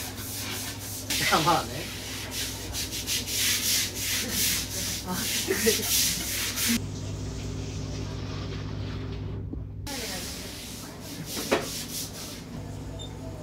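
A long-handled scrubbing brush scouring a wet floor in quick repeated strokes, which stop abruptly about seven seconds in. After that only a steady low hum remains, with one sharp knock near the end.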